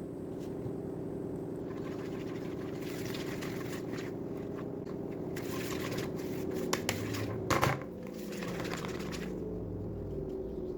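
Washing machine running with a steady hum, with intermittent scraping and knocking sounds over it and a sharper knock about seven and a half seconds in.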